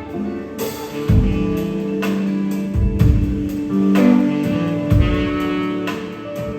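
Band music with guitar and drums: held notes over a steady beat.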